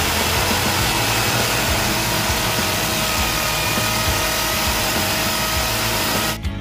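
Electric drill boring into a concrete wall, running steadily under load with a faint whine, as holes are drilled for the air-conditioner outdoor unit's mounting bracket. It stops suddenly just before the end.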